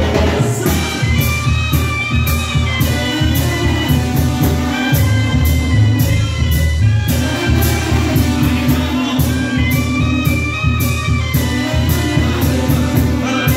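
Live Mexican banda, a brass band, playing a cumbia: horns carry the melody over a heavy bass line and a steady dance beat.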